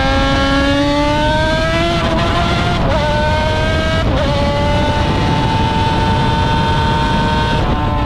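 Yamaha YZR500 V4 two-stroke Grand Prix racing motorcycle engine at full throttle, climbing in pitch through three quick upshifts. It holds steady at high revs, then eases off near the end.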